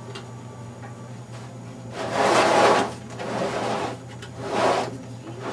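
Metal chassis sections of an Avid VENUE FOH rack being slid and handled: three scraping, rubbing noises, the longest and loudest about two seconds in, over a faint steady hum.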